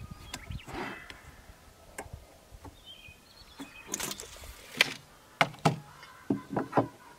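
Hand-tool handling while measuring and marking a wooden board: light scrapes, then several sharp clicks and knocks, loudest in the second half, as a steel tape measure is retracted and set down on the plywood.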